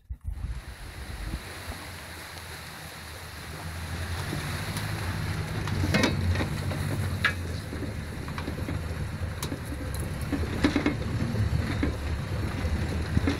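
Off-road vehicle's engine running steadily while driving a rough, rutted track, growing louder about four seconds in, with occasional knocks and rattles from the jolting vehicle.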